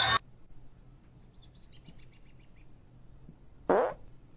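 Faint quick run of high bird-like chirps, about eight in a row, in a quiet background, followed near the end by a short loud noisy burst.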